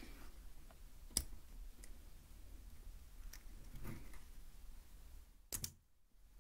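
Sharp clicks and handling noise from the battery compartment of a 3Dio Free Space binaural microphone being worked during a battery change. The loudest click comes about a second in, a few softer ones follow, and the sound cuts out briefly near the end.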